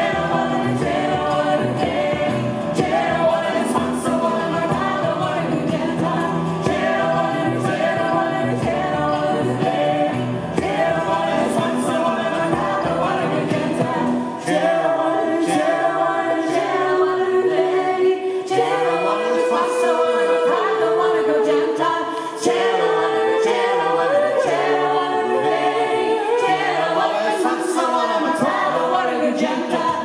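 A folk group singing in several-part harmony, backed by guitars and a bodhrán. About halfway through the low accompaniment drops away and the voices carry on largely unaccompanied.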